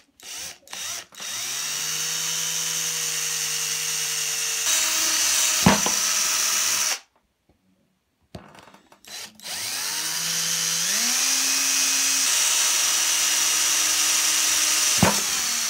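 Electric drill drilling holes into the tube in two runs of several seconds each, with a short pause between them. Each time the motor's whine rises as it spins up, and its pitch shifts partway through the cut.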